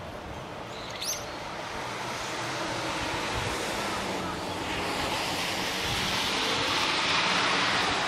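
Steady rushing, wind-like outdoor noise that grows louder in the second half, with one short high bird call about a second in.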